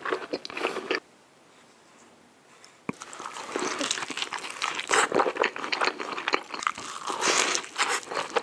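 Close-miked eating: a large burrito being bitten into and chewed, with many small sharp clicks of mouth and food. The sound drops out to near silence about a second in and comes back about two seconds later.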